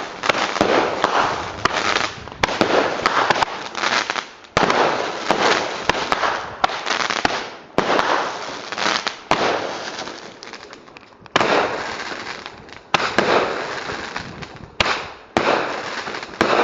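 Fireworks going off in quick succession: about a dozen sharp bangs, each trailing off in a long echo.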